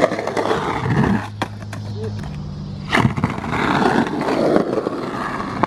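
Skateboard wheels rolling over rough concrete: a steady rumbling noise, with a sharp clack of the board about three seconds in.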